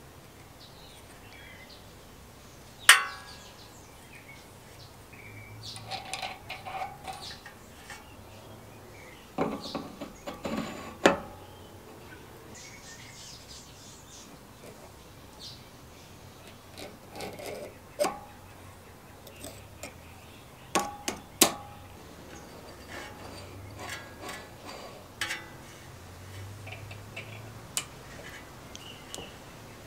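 Irregular metallic clicks, taps and short clatters of hand tools and steel parts as a sprocket is fitted onto a lawnmower's drive shaft and secured with circlip pliers. A few sharp clinks stand out: one about three seconds in, one around eleven seconds, and two close together around twenty-one seconds.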